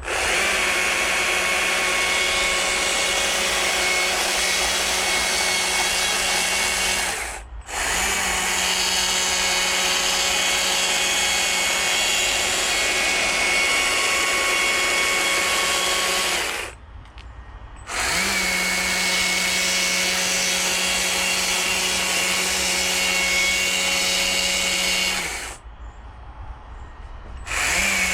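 Chainsaw running at full throttle, cutting into a wooden log for a carving, with a steady high engine note. The throttle is let off briefly twice in the middle and once near the end, and each time the engine revs back up.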